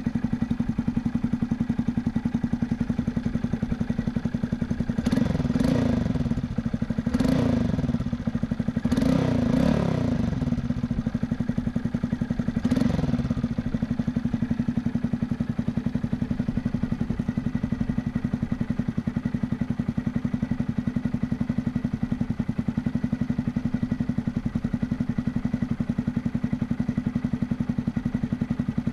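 Honda Grom's 125 cc single-cylinder four-stroke engine breathing through an aftermarket AR low-mount exhaust: idling steadily, with several quick throttle blips between about five and thirteen seconds in, each rev rising and dropping back to idle.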